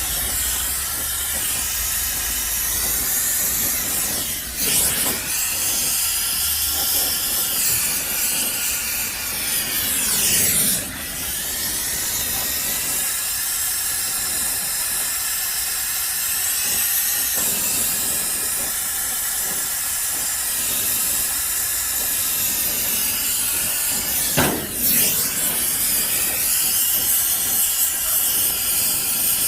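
A steady, continuous hissing jet, its tone sweeping briefly three times.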